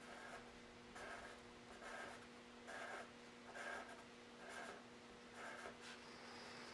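Pencil lead scratching on paper in short repeated strokes, about one a second, as straight lines are drawn; faint.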